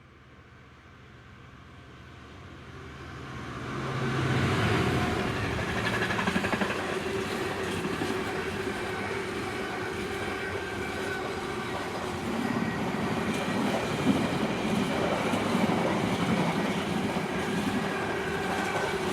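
A train approaching and then running past close by on the main line: its noise builds over the first four seconds and then stays loud and steady as the train goes by.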